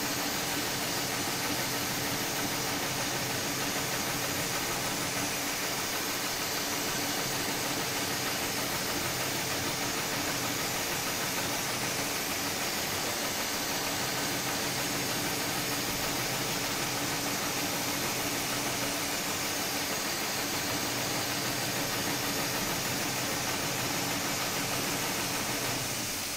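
Steady machine hum with a constant hiss, unchanging and without any stitching rhythm.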